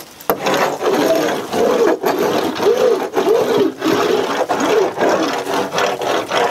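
Fibreglass laminating roller worked back and forth over epoxy-wet glass mat to press out the last air bubbles, with a rubbing scrape and a squeak that rises and falls in pitch, repeating about twice a second.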